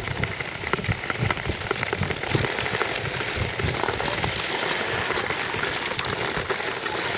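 Tour skate blades scraping and gliding over natural ice: a steady hiss with many small clicks and ticks of blades and poles on the ice.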